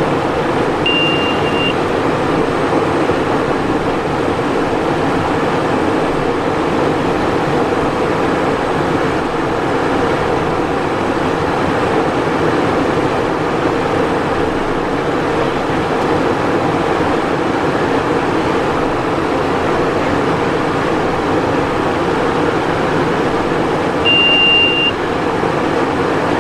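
Steady cockpit noise of a Cessna Citation Encore business jet in flight on approach, a constant rush of airflow and engine drone. A short high beep sounds twice, about a second in and near the end.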